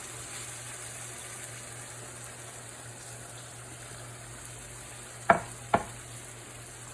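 Chicken, spices and a little added water sizzling steadily in a heavy-based cooking pot. A little past five seconds in come two sharp knocks about half a second apart.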